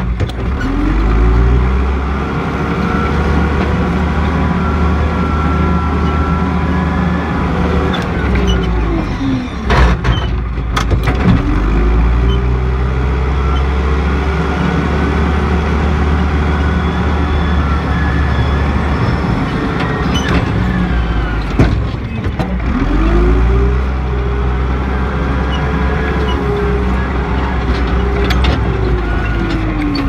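John Deere 310E backhoe's diesel engine working at high revs. It drops briefly toward idle twice, about ten and twenty seconds in, and revs back up each time, with a few sharp knocks around the dips.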